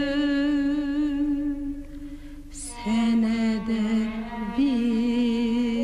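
A singer holds long, slightly wavering notes in a Turkish song, dropping to a lower held note about three seconds in.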